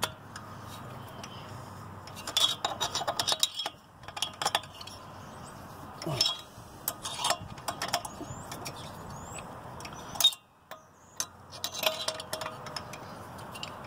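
Scattered clusters of metal clicks and clinks from a Torx T27 driver working the cylinder base bolts of a chainsaw engine. The bolts are already tight and are being checked again. A single sharp click comes a little after the middle.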